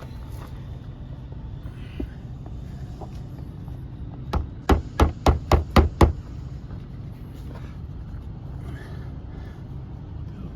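A hammer striking seven times in quick succession, about four blows a second, about halfway through, over a steady low rumble.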